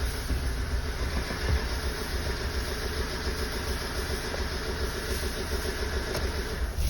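Ford car engine idling on three cylinders, one cylinder misfiring, with an uneven low beat. It stops at the very end.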